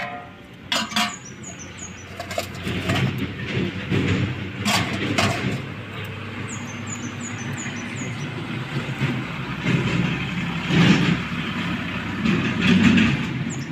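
A steady low rumble like a vehicle engine running nearby, growing from about two seconds in, with a few sharp metal clinks near the start and middle and a quick run of high chirps about halfway through.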